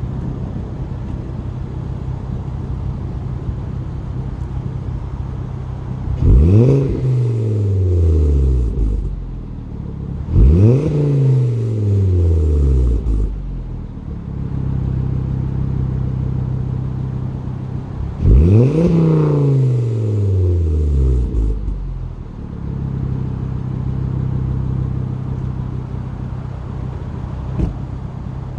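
2011 Volvo C30 T5's turbocharged five-cylinder engine idling through a Simons sports exhaust and revved three times, each rev rising quickly and sinking slowly back to idle. The owner hears a buzz from the rear muffler box itself, even when revving, and mostly as the revs fall from about 2,500 rpm.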